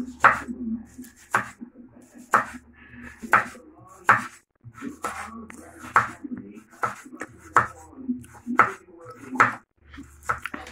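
Kitchen knife slicing a raw carrot into rounds on a wooden cutting board: the blade knocks sharply through onto the board about once a second, roughly ten cuts in all.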